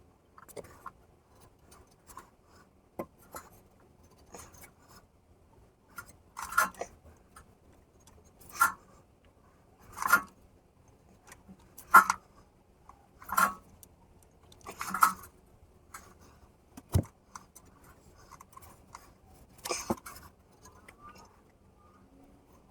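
A series of short scraping clicks from hand work with tools, about eight of them, spaced a second or two apart.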